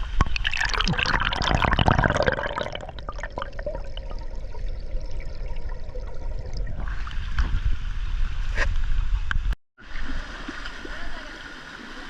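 Rushing water of a rainforest stream pouring over rocks, with a heavy low rumble on the microphone, loudest in the first two seconds or so. About nine and a half seconds in it cuts off abruptly and comes back quieter.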